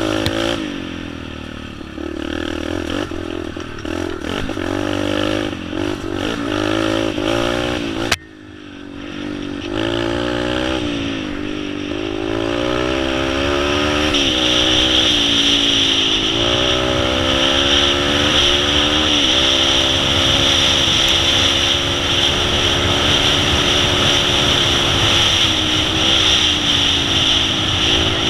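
Yamaha TTR-125 dirt bike's four-stroke single with an FMF exhaust, ridden with the revs rising and falling through throttle and gear changes. About eight seconds in there is a sharp click and the sound drops, then the engine pulls up through several rev swings and holds steadier at higher speed.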